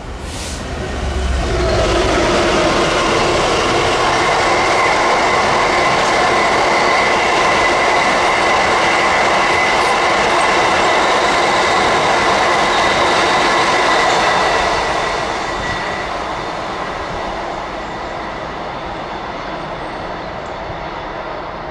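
Freight train passing, its wheels running on the rails with a steady high-pitched ring over the rumble. The noise builds over the first two seconds, holds, and fades away from about fifteen seconds in.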